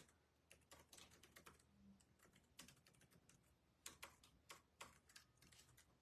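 Faint, irregular clicking of typing on a keyboard, several taps a second, with a few sharper clicks about four to five seconds in.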